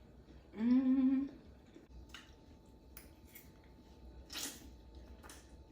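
A short hummed note from a person's voice, then a handful of faint, scattered clicks and taps.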